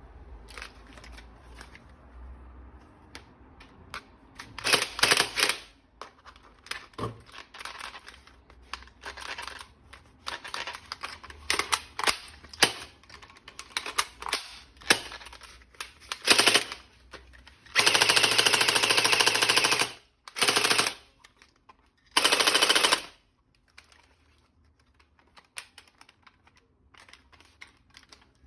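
Toy gun firing in rattling bursts: one long burst of about two seconds, then a short one and a burst of about a second, among scattered clicks and rattles of plastic parts being handled.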